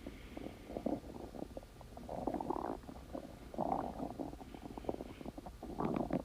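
Stomach growling: bubbly, crackling gurgles that come in uneven bouts, about two seconds in, again around three and a half seconds, and strongest near the end.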